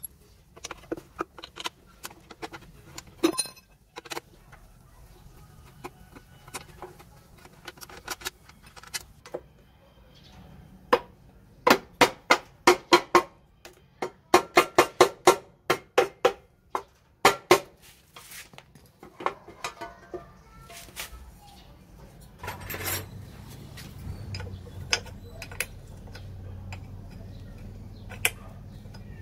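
Hand tools clinking and knocking on the aluminium case of a GY6 scooter engine, with scattered sharp metal taps and two runs of quick knocks, about four a second.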